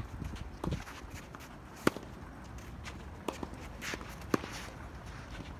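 Tennis ball struck by rackets during a doubles rally: a few sharp hits, the loudest about two seconds in and another strong one about four and a half seconds in, with players' footsteps scuffing on the court.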